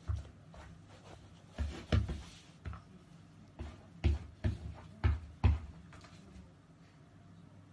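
A collie pawing at a cloth on a carpeted floor: about nine irregular soft thumps and scuffs from its paws, the heaviest in the middle stretch.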